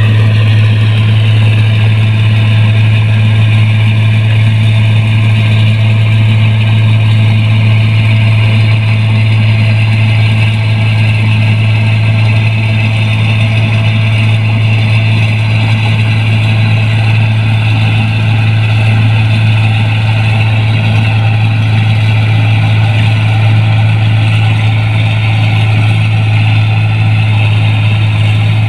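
New Holland 1545 combine harvester running under load while cutting and threshing rice: a loud, steady drone of engine and threshing machinery over a strong, constant low hum.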